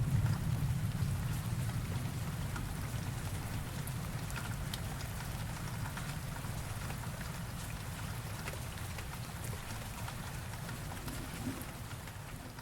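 Steady rain with scattered drop ticks, while the low rumble of a thunderclap dies away over the first couple of seconds. The rain grows a little quieter near the end.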